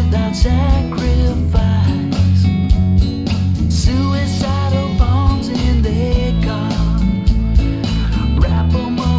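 Background music: a rock song with guitar over a steady beat and a bending melody line.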